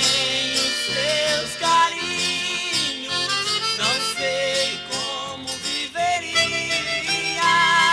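Instrumental break of a 1980s música caipira (Brazilian country) duo song: a wavering lead melody over plucked guitar accompaniment, with no singing.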